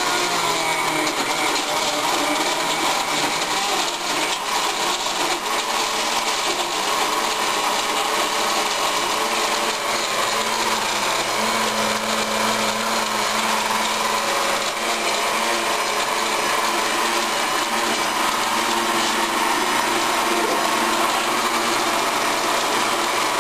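Countertop blender running steadily, grinding ice cubes into a milk and ice-cream protein shake in its glass jar.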